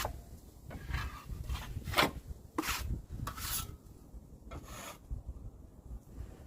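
Drywall knife scraping joint compound along a seam while feathering it out: about six short scraping strokes, spaced out over the first five seconds.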